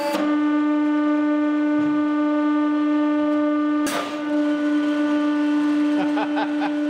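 Hydraulic press's pump running with a loud, steady whine, broken by a sharp snap at the start and another about four seconds in, after which the ram lifts off the crushed airsoft gun.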